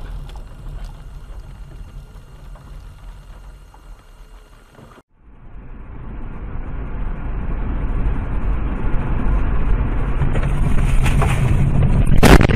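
Car cabin noise from a dashcam: a steady low rumble of road and engine, a brief dropout about five seconds in, then road and wind noise growing steadily louder as the car travels fast. Near the end come several sharp loud bangs as the car runs off the road.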